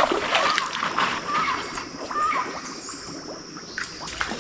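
Water splashing in irregular bursts as a big hooked fish is fought at the water's edge, heaviest in the first second or so and easing off after.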